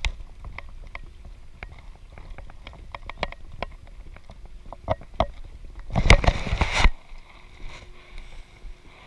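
Small sharp knocks and clicks from a Hobie pedal fishing kayak as it moves on the water, coming unevenly a few times a second. About six seconds in comes a louder clatter of handling lasting under a second, as the camera is turned.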